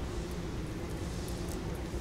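Airport terminal ambience: a steady low hum under a constant wash of background noise in a large hall.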